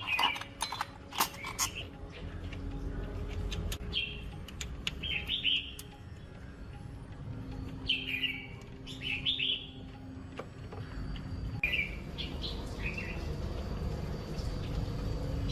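Birds chirping in short calls, often in pairs, every few seconds over a steady low hum. A few sharp clicks come in the first second or two.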